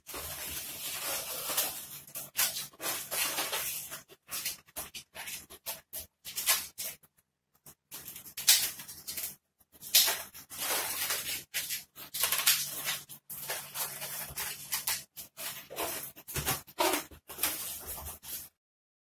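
Latex modelling balloons rubbing and squeaking against each other and the hands as they are twisted and bent into shape. The sound comes in uneven bursts with short gaps, with a couple of louder squeaks about halfway through.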